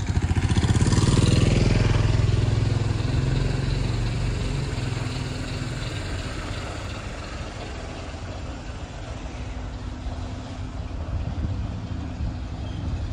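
A small motorbike's engine passing close by, loudest about a second in, then fading away over the following seconds into a steady low drone of street traffic.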